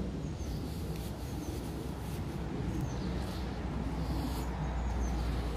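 Walking on a muddy woodland path: footsteps and rustle over a low steady rumble, with short high bird chirps about once a second.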